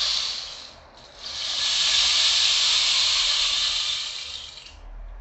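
A rain stick being tipped, its filling trickling down inside as a steady high hiss. One pass dies away about a second in, then the stick is turned again and a second, longer cascade swells and fades out near the end.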